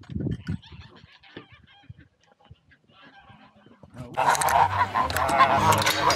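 A flock of white domestic geese honking together, many calls overlapping. The honking starts loud and sudden about four seconds in, after a quiet stretch.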